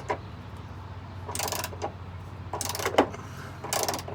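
Socket ratchet clicking in three short strokes about a second apart, turning a step bar bracket bolt into the truck's frame insert. A steady low hum runs underneath.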